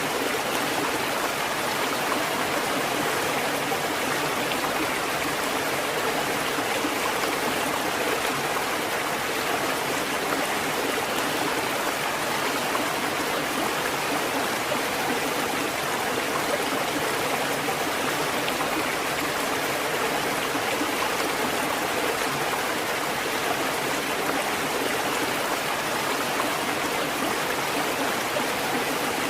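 Water fountain running: a steady, unbroken splashing and trickling of falling water.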